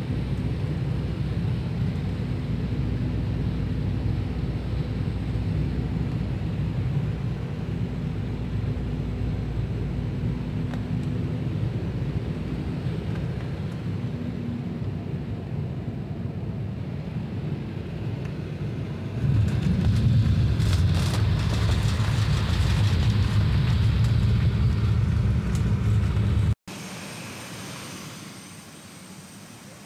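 Airliner cabin noise on landing: a steady low engine rumble with a faint hum, which turns suddenly louder and fuller about two-thirds of the way through as the plane rolls down the runway. Near the end it cuts off abruptly to a much quieter outdoor background.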